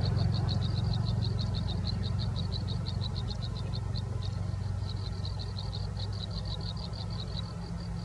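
A rapid, even series of short high chirps, about six a second, with a brief pause about four seconds in, over a steady low hum that slowly fades.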